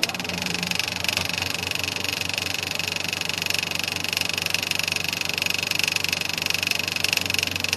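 Film projector running steadily, a whirr with a fast, even clatter, as an old-film effect.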